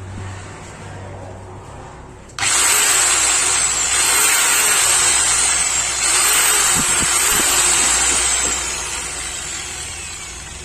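Electric angle grinder switched on about two seconds in. It runs loud, its high motor whine climbing and then sagging four times as it is run up and eased off, and it winds down near the end. It is running on thinned carbon brushes with freshly greased gearing.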